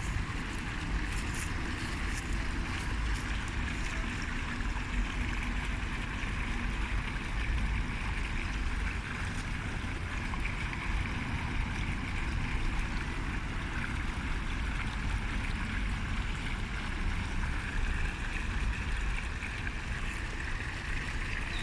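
Fountain water splashing and pouring steadily, with a low rumble of wind on the microphone.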